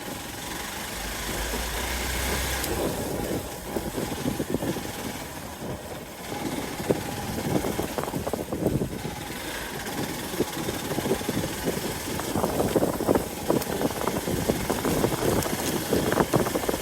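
Hero XPulse 200 Pro's single-cylinder engine running at low revs, with an uneven, crackly rumble that grows busier over the second half.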